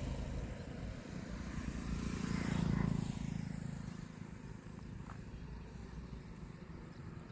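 Motor vehicle engine running with road noise, swelling louder between about two and three seconds in, then easing off.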